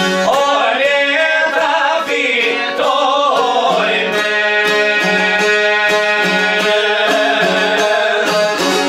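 Albanian folk song: a man sings for about the first four seconds over violin and çifteli (long-necked plucked lute) accompaniment with a steady plucked beat, then the instruments play on without the voice.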